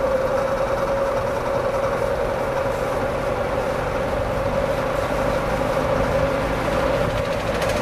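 Vintage Lasko 6745 box fan running steadily on low, its only working speed, since the high speed is dead. It makes an even whirring hum with one steady tone.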